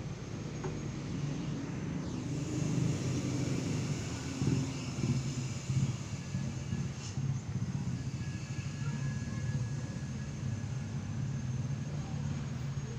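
A steady low rumble like a motor running nearby, with a faint thin high tone held above it.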